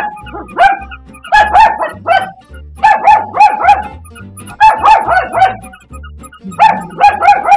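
Battery-operated toy puppy's electronic barking: short, identical yaps in groups of two to four, repeating about every second and a half, over music with a steady low beat.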